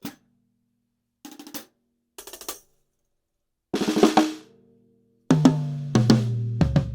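Acoustic drum kit played dry through a Yamaha EAD50's single bass-drum-hoop microphone, with no effects, compression, EQ or limiting. A single hit, two short quick flurries of strokes, a louder burst, then a fill across drums lower and lower in pitch, the last ringing on.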